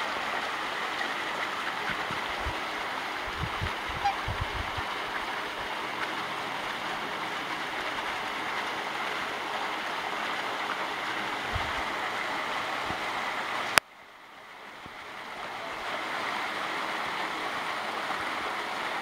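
Water splashing steadily into a pond. About 14 seconds in it cuts off with a sharp click, then fades back up to the same steady splashing.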